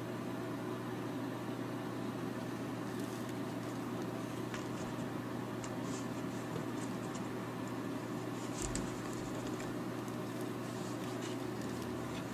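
Steady low electrical or mechanical hum with hiss, from an appliance or from the recording's own room noise, with a few faint light taps and scratches scattered through it.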